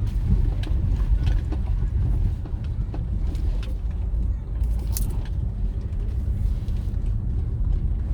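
Steady low rumble of a moving vehicle travelling along a road, with scattered light knocks and one sharper click about five seconds in.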